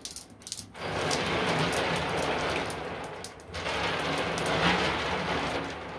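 Water sloshing and splashing as a hand swishes through a stainless steel sink full of water and dissolving hard candy, in two spells with a short pause about halfway.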